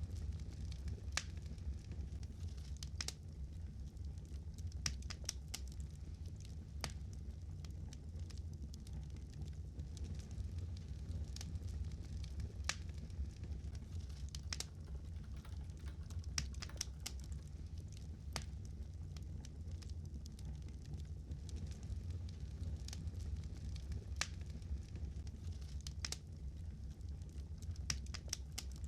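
Fire crackling: irregular sharp pops and snaps, several a second at times, over a steady low rumble.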